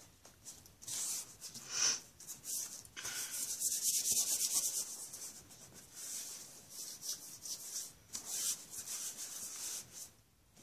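Hands rubbing and smoothing a sheet of paper pressed onto paint-covered plastic wrap: a series of irregular dry swishing strokes of skin on paper, heaviest about three to five seconds in.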